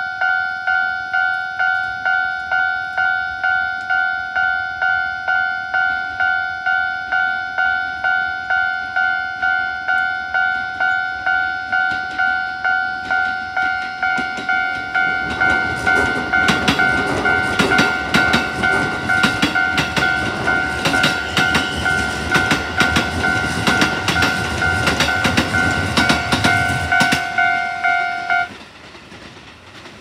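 Japanese level-crossing warning bell dinging repeatedly while a Keikyu 1000-series electric train passes through the crossing from about halfway in, its wheels rumbling and clacking over the rail joints. Bell and train cut off abruptly near the end.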